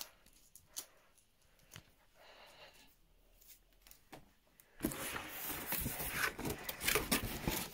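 A cardboard box's taped flaps being pulled and torn open: a few faint scrapes and clicks at first, then loud tearing and crinkling of cardboard and packing tape from about five seconds in.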